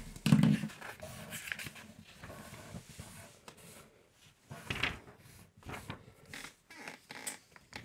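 Felt-tip marker scratching on paper in short irregular strokes, with sheets of paper rustling as they are handled. A short low hum of a voice just after the start is the loudest sound.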